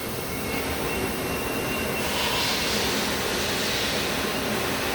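Tyre changing machine running, turning the wheel and tyre assembly against its bead roller with a steady mechanical noise. A broader hiss joins in about two seconds in.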